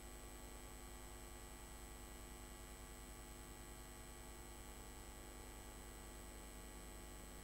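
Near silence apart from a steady electrical mains hum, with a thin steady high tone above it.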